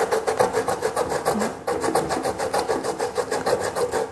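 Peeled cassava root scraped by hand against a metal tube grater, in quick, even strokes, several a second, as the root is grated to a fine pulp.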